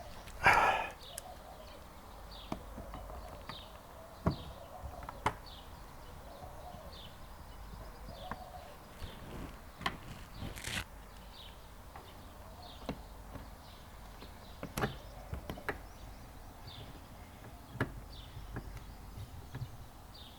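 Scattered clicks and knocks of a car's plastic door trim panel being fitted back on, with the loudest knock about half a second in.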